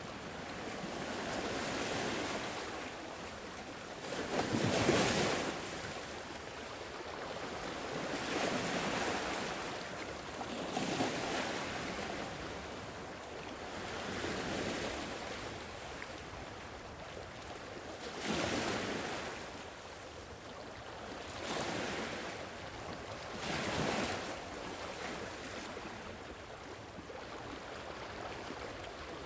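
Gentle sea waves washing onto a shore, a rushing surge every few seconds that swells and fades away.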